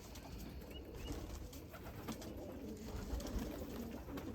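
Racing pigeons cooing, with a couple of faint high chirps about a second in.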